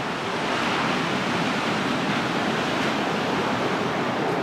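Atlantic Ocean surf: a steady wash of waves breaking on the beach.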